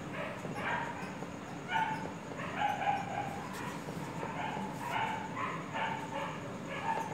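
Repeated short, high animal cries, yelps or whines a few times a second, over a steady low hum.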